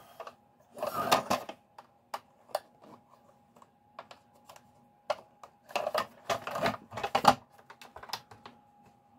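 Hard plastic toy parts clicking and rattling as a Batmobile toy's tail fin is handled and pushed into its snap-fit slot, in irregular bunches of clicks, the busiest about a second in and again around six to seven seconds.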